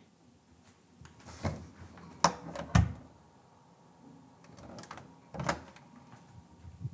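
Interior door handle and latch clicking, with sharp knocks: a close pair about two and a half seconds in and another about five and a half seconds in, as the door is opened.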